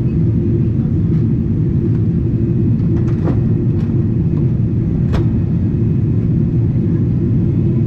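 Steady cabin rumble of a Boeing 777-300ER in flight, heard from a window seat: engine and airflow noise, low and even. A few faint clicks come through about three and five seconds in.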